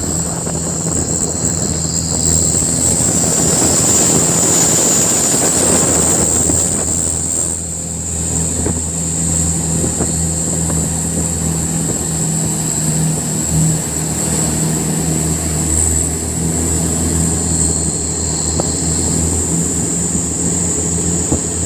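Truck diesel engine running with a steady low drone, swelling louder between about two and seven seconds in. A constant high-pitched whine sits above it.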